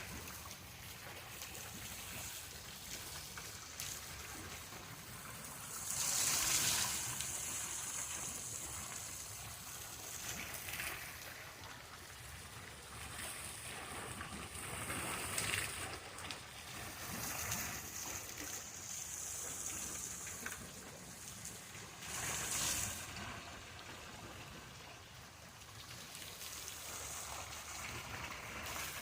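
River water rushing steadily at a watermill, with louder hissing swells about six seconds in and again near twenty-two seconds.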